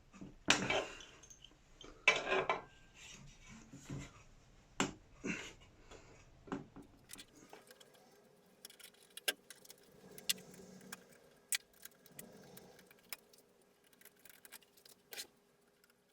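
Metallic clinking, rattling and knocking of tools working at the clamping bolt under the drill press table. There are two louder knocks about half a second and two seconds in, then fainter scattered clicks.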